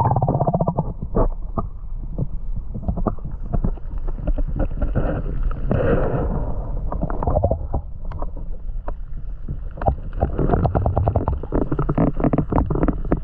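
Stream water heard through an action camera's waterproof housing underwater: a muffled, rumbling churn full of small clicks and knocks, with runs of rapid clicking near the start and again near the end.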